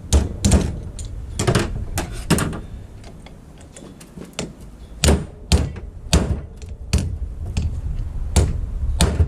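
Metal tool knocking and scraping against a cast 14-bolt axle hub while prying at the old grease seal to pop it out, an irregular series of sharp clicks and knocks.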